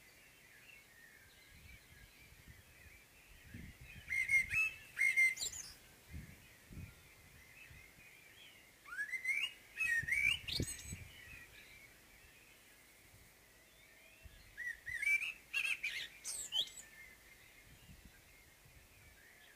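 Common blackbird singing its dawn song: three fluty, warbling phrases about five seconds apart, each ending in a high, rapid twitter. Fainter birdsong carries on steadily in the background between the phrases.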